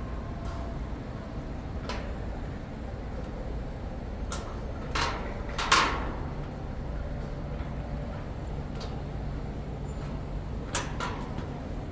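Outdoor city ambience: a steady low rumble of distant traffic, with a few sharp clacks, the loudest about halfway through and a quick run of three near the end.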